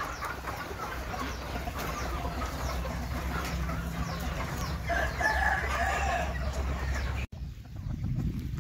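Flock of free-range country chickens clucking and chirping, with a rooster crowing about five seconds in, over a steady low hum. The sound breaks off abruptly near the end.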